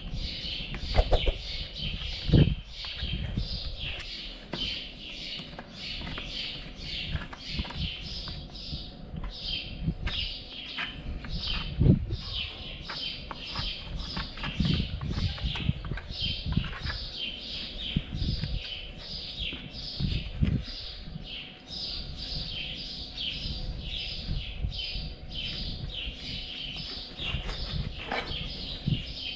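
A small bird chirping over and over in a steady rhythm of about two short, falling chirps a second. Under it are scattered low thumps and scuffs as a horse's hoof is handled and cleaned.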